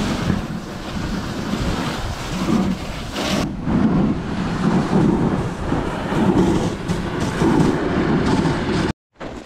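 Wind buffeting the microphone over the rumble and hiss of a moving dog sled running on snow. The sound is steady with a pulsing low rumble and cuts off suddenly near the end.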